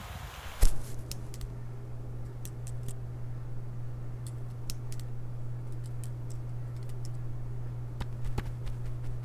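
A sharp thump just over half a second in, then a steady low hum under scattered light clicks and taps of a pen on a paper notebook, with a short run of sharper clicks near the end.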